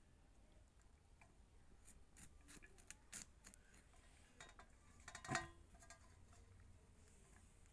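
Faint, crisp snaps and clicks of cauliflower florets being cut from the head against a large knife blade. There are a few scattered clicks, the loudest a little past halfway.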